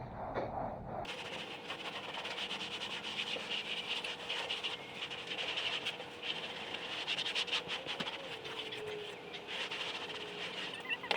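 Rapid, continuous scratchy strokes of a tool worked over the flesh side of a dried beaver hide, scraping off the inner fat lining.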